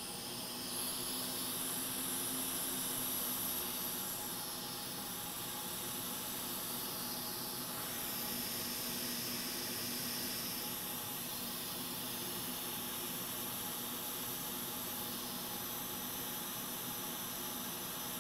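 Hot air rework station blowing a steady hiss over a BGA chip, with a faint steady hum underneath, melting the solder to lift the chip off the board.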